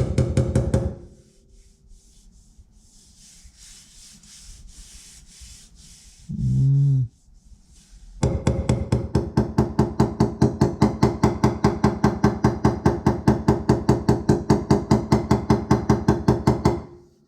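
Body hammer tapping quickly and evenly on sheet-metal bodywork, about six or seven blows a second with the panel ringing, knocking down high spots. A quieter rasping stretch comes between the two runs of tapping.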